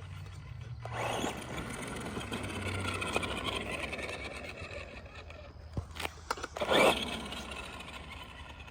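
Brushed electric motor of an Arma Granite Boost RC truck running as the truck drives, with tyre and ground noise. A short, louder clatter comes near seven seconds in.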